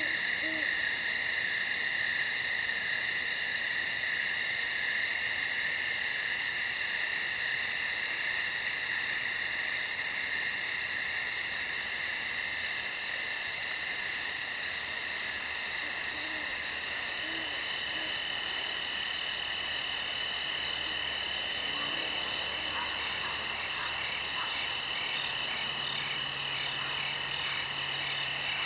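Night-time nature ambience: a steady, high chorus of trilling insects, with a few short, low owl hoots near the start and again about two-thirds of the way through.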